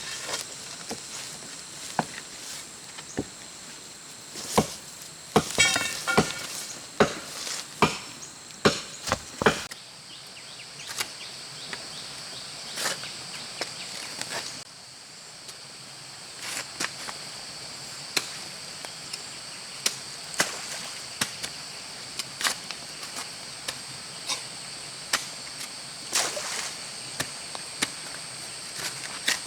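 Hand digging tools chopping into field soil in irregular strikes, sometimes one or two a second. The strikes come closer together in the first ten seconds and thin out after that.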